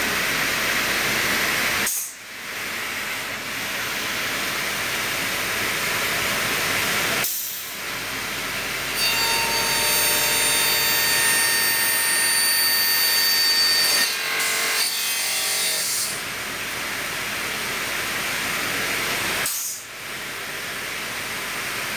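CTD M516 mitre saw running and cutting a wooden board: a steady rush of noise with a high whine from about nine seconds in, then a couple of seconds of rapid rough rasping. The sound cuts out briefly three times.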